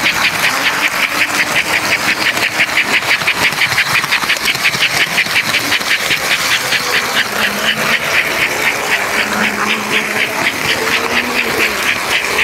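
American Flyer S-gauge toy train with a Northern steam locomotive running on its track, heard close up from a car riding in the train: a fast, even rhythmic clatter over a low motor hum.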